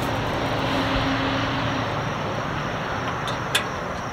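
Steady background engine noise that slowly fades, with a single sharp click about three and a half seconds in.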